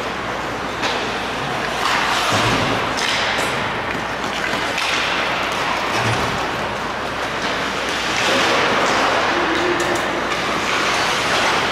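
Ice hockey play on a rink: a steady hiss of skates on the ice with a few sharp thuds of sticks, puck and boards, growing louder about eight seconds in.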